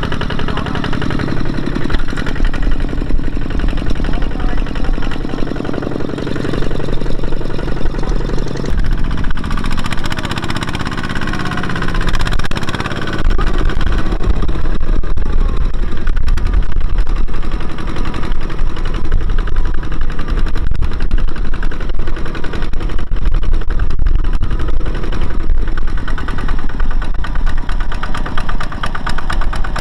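Single-cylinder diesel engine of a Kubota two-wheel walking tractor running steadily with a rapid, even chugging beat as it hauls a trailer of rice sacks through mud. The engine gets louder about halfway through.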